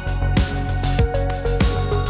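Electronic background music with a steady kick-drum beat and sustained synth notes.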